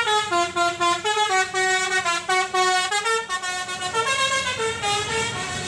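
Multi-tone musical bus horn of an Indonesian coach ('telolet' horn) playing a quick tune, its notes stepping up and down in pitch several times a second.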